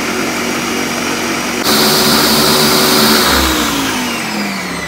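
Ninja countertop blender motor blending almonds and milk. It runs steadily, turns suddenly louder and harsher about two seconds in as the speed goes up, then its pitch slides steadily down as the motor winds down.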